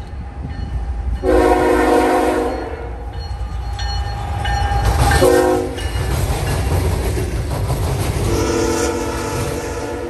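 Freight locomotive air horn sounding a long blast, a short one, then another long blast as a BNSF intermodal train passes close by, over the low rumble of the diesel engines and wheels on the rails.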